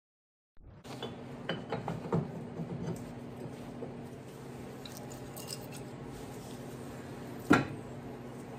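Light metal clinks as steel parts and tools are handled, with one louder metal knock near the end, over a steady machine hum.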